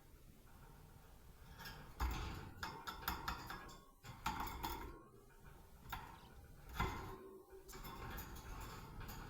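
Pet budgerigars making short chirps mixed with sharp clicks and rattles, starting about two seconds in.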